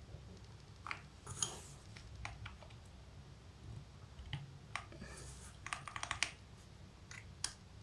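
Mechanical keyboard keys and keycaps being handled and pressed: irregular, faint plastic clicks, with two quick runs of several clicks about five and six seconds in.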